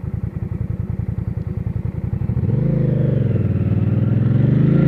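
2009 Hyosung GV650's V-twin engine and exhaust loping at low revs with a steady pulsing beat, then accelerating about two seconds in, its pitch rising, easing briefly, and climbing again. The exhaust runs through the stock muffler with its rear baffle torn out.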